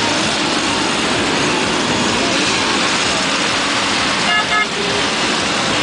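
A crowd of Simson two-stroke mopeds running together as a column rides off at low speed, a dense steady engine noise. A horn beeps twice, briefly, about four seconds in.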